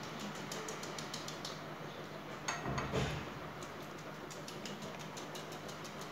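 Silicone pastry brush dabbing melted ghee onto a thin sheet of phyllo dough: light, irregular ticking and crinkling of the papery pastry, several taps a second, with one louder rustle about two and a half seconds in.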